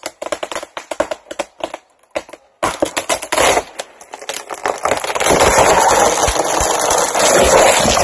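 A barber-chairing tree trunk splitting lengthwise under tension. First comes a rapid run of sharp cracks as the wood fibres let go. Then, about two and a half seconds in, a continuous splintering and tearing that grows louder toward the end as the split trunk gives way.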